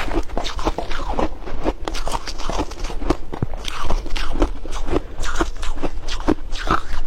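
Ice being bitten and chewed close to the microphone: a continuous run of irregular, crisp crunches, a few each second.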